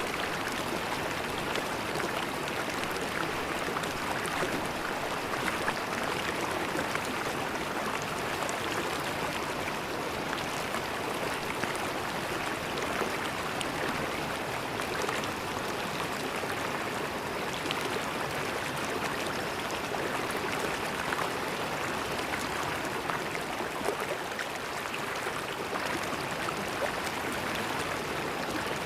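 River water flowing and gurgling steadily, a continuous rushing with fine splashes and no breaks.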